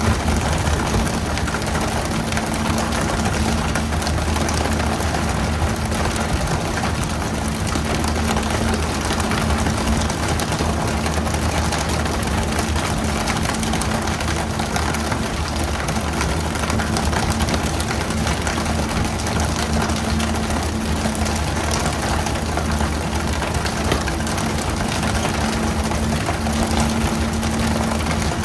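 A fishing boat's engine running steadily, with a constant hiss over it.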